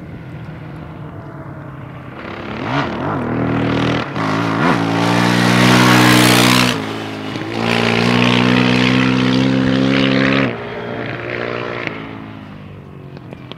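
Harley-Davidson V-twin motorcycle engine accelerating through the gears, with brief dips in the engine note at the shifts about three, five and seven seconds in. It then pulls strongly and steadily with wind noise. After about ten seconds the throttle closes and the engine note falls away.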